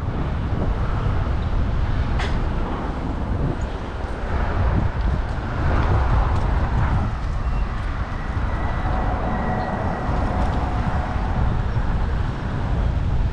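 Traffic and road noise heard from a moving bicycle, with a heavy low wind rumble on the microphone. A single sharp click about two seconds in.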